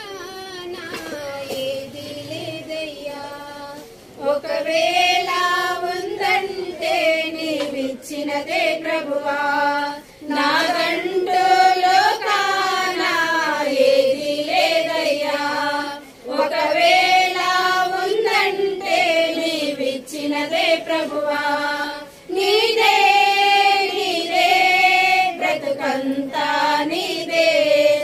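A group of women singing a Telugu Christian hymn in unison from songbooks, in phrases of a few seconds with short breaks between lines; the singing is softer for the first few seconds and fuller from about four seconds in.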